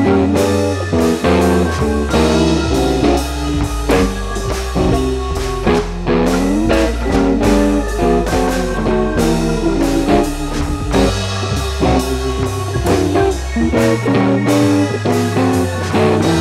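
Background music: a guitar-led blues-rock track over bass and drums, with a steady beat.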